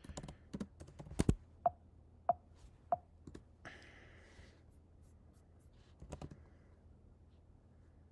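Computer keyboard typing in short bursts of key clicks, with three evenly spaced key strikes around two seconds in, then a pause before a few more taps.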